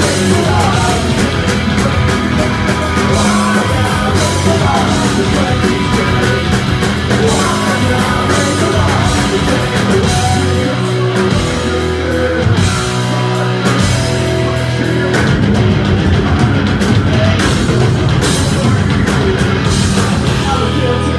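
Live punk rock band playing loud and without a break: distorted electric guitars, bass guitar and drum kit, with a singer's vocals over them.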